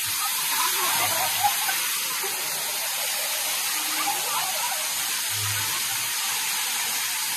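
Artificial waterfall pouring down a rock wall onto a paved walkway: a steady hiss of falling water and spray.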